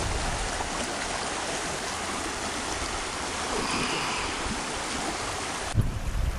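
Shallow river rushing and rippling over stones, a steady sound that cuts off abruptly near the end.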